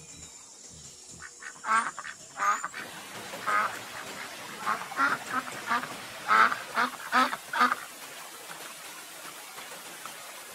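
A run of about a dozen short bird calls in irregular clusters, starting about a second and a half in and stopping near the eight-second mark. It is the animal sound effect given to cartoon ostriches.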